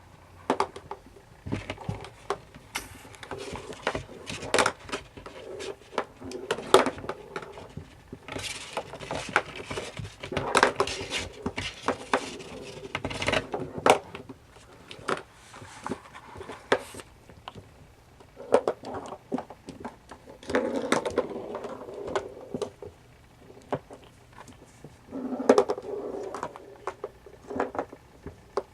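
Kittens playing: an irregular run of light taps, knocks and scuffling, with a few denser clattering stretches in the second half.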